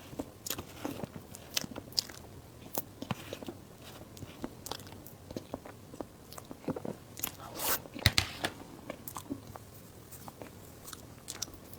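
A person eating close to the microphone: biting and chewing, with many short crunches and mouth clicks at an uneven pace, a little busier about two thirds of the way through.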